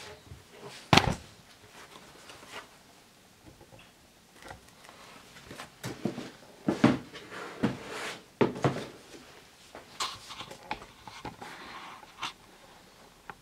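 Handling noise, likely the running shoes and their packaging being moved about: scattered knocks and short rustles at uneven intervals. The loudest knock comes about a second in, with a cluster of others around the middle.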